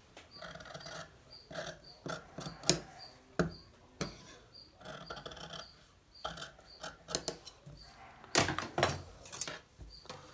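Tailor's scissors cutting through cotton shirt fabric, with irregular snips and clicks of the blades and the cloth rustling as it is moved. A longer, louder rustle and scrape of the fabric sliding on the table comes near the end.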